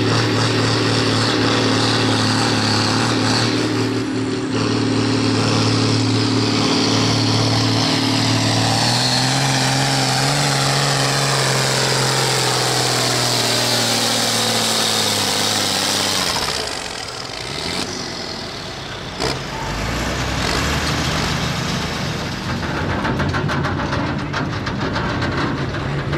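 Hot stock pulling tractor's turbocharged diesel engine at full throttle, holding a steady note that climbs slightly partway through. About sixteen seconds in, the engine drops off sharply to a low idle, then revs up again near the end.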